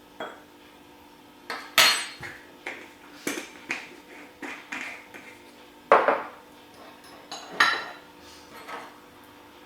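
A teaspoon clinking and tapping against dishes while black pepper is measured out: a string of irregular sharp clinks, the loudest about two seconds in, about six seconds in and just before eight seconds.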